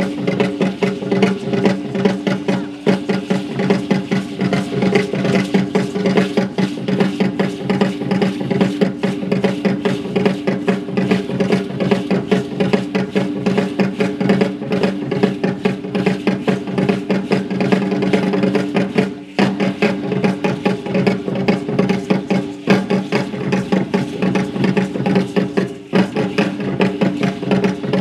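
Percussion music for Aztec dancing: a fast, dense drumbeat over a steady low drone.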